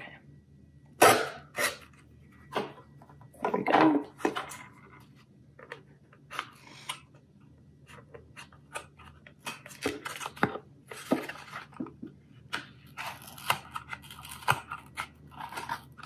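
Scissors snipping through a paperboard juice carton to cut a small hole, with the carton crinkling. The cuts come irregularly: a few louder ones in the first four seconds, then a quicker run of small snips from about ten seconds in.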